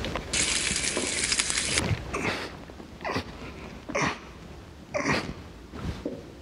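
Steam iron's hiss of steam, lasting about a second and a half, followed by four short breathy puffs about a second apart.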